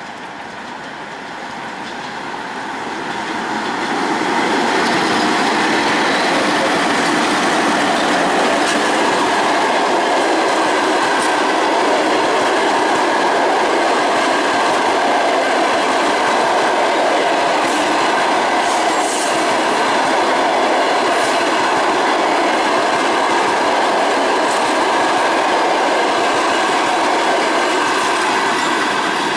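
A passenger train hauled by two ChS2K DC electric locomotives passing close by. The noise builds over the first four seconds as the locomotives come near, then holds steady and loud as the coaches roll past on their wheels over the rails, with a few faint clicks.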